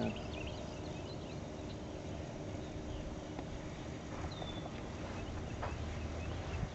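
Outdoor ambience: a steady low rumble with a few short, high bird chirps, one falling chirp about four seconds in.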